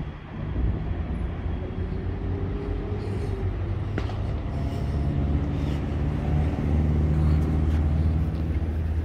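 A vehicle engine running nearby, a steady low hum that swells a little in the later seconds.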